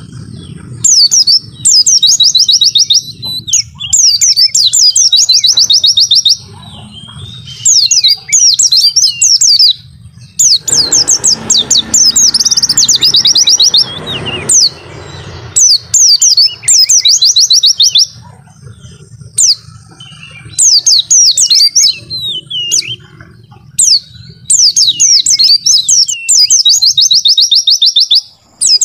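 White-eye (pleci) song: rapid high chattering trills repeated phrase after phrase, each a second or two long with short pauses between. A low hum runs underneath, and a brief rushing noise sits under the song around the middle.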